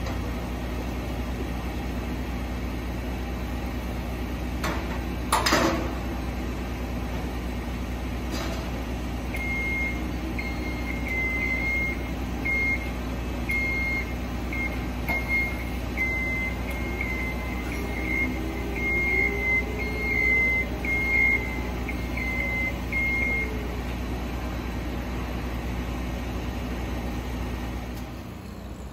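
Genie scissor lift's motion alarm sounding short high-pitched beeps over a steady low hum, for roughly fourteen seconds from about nine seconds in. About five seconds in there is a single sharp knock.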